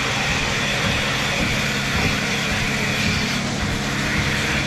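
Milking parlour machinery running steadily, the milking units attached to a cow's udder: a constant low hum under an even hiss.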